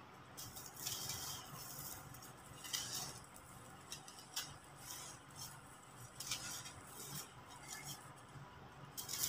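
Hands crushing and crumbling blocks of dry compacted sand, giving a string of separate crunches with grains trickling and scraping.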